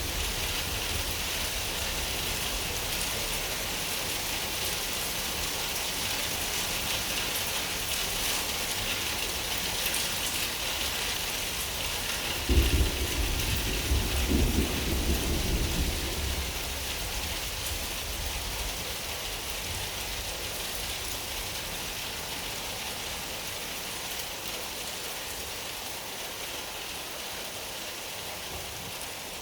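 Steady rain falling, with one clap of thunder about twelve seconds in that rumbles on for some three seconds. The whole rainfall slowly fades toward the end.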